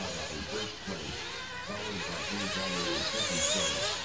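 Several nitro RC buggies' small two-stroke glow engines running around the track together, their whines overlapping and rising and falling as they rev and back off.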